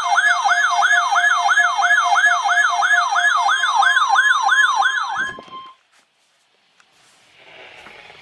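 Weather alert radio's electronic siren alarm: a rapid falling-pitch yelp repeating about four times a second over steady tones, which cuts off after about five seconds and leaves a faint hiss near the end.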